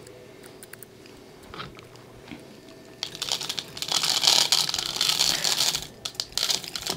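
Black oil sunflower seeds poured from a bowl through a funnel into a glass jar of chicken feed, making a dry rattling hiss. It starts about three seconds in and breaks off briefly near the end.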